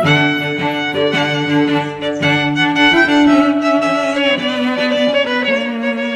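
Background music led by a violin, playing long held notes that change pitch every couple of seconds.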